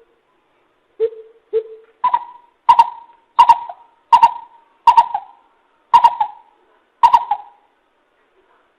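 Greater coucal calling: a series of deep, hollow hooting notes. Two lower notes come first, then seven higher ones spaced a little under a second apart.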